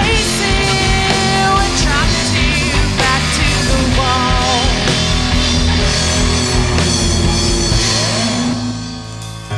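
Live rock band playing an instrumental passage on drums, bass and guitars, with wavering high lead notes over the top. About eight seconds in, the bass and drums drop out and the music thins and quietens.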